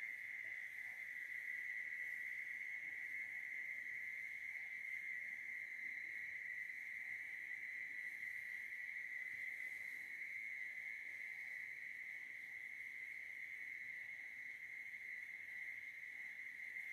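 Insects trilling steadily in one unbroken high-pitched drone.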